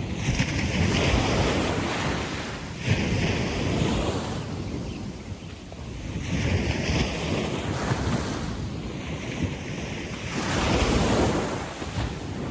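Small waves breaking and washing slowly up a sandy beach, swelling and falling back in four surges a few seconds apart.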